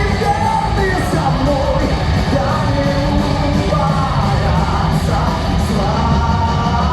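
Metal band playing live, with sung vocals over heavy drums and distorted guitars.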